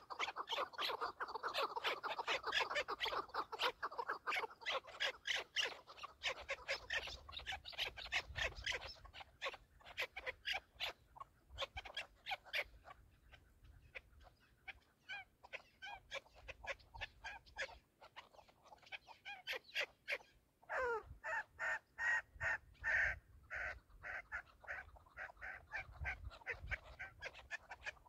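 Chukar partridges calling: long runs of rapid, repeated clucking notes, densest in the first few seconds, thinning out, then a louder burst of calls about three quarters of the way through.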